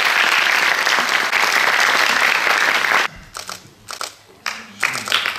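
Audience applauding. It stops abruptly about three seconds in, leaving only a few scattered claps, and the applause starts up again near the end.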